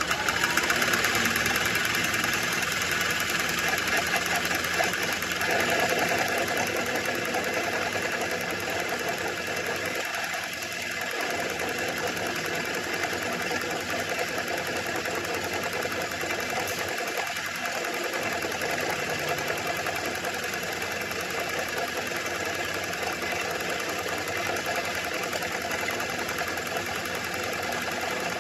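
Metal lathe running steadily, a continuous hum and whine of motor and gears, while machining a weld-built-up part down to bearing size.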